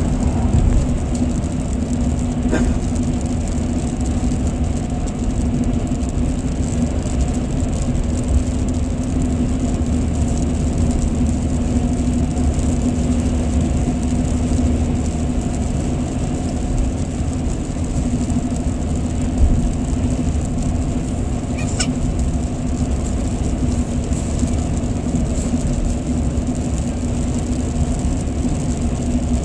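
Steady road noise inside a moving car's cabin: tyres running on wet highway pavement over a continuous engine and drivetrain drone. Two brief faint ticks, one near the start and one about two-thirds of the way through.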